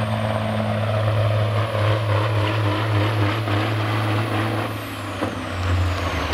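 Semi truck's diesel engine running as the truck stops at the end of a pull with the sled. A high turbo whine falls away over the last couple of seconds, and there is a brief air-brake sound about five seconds in.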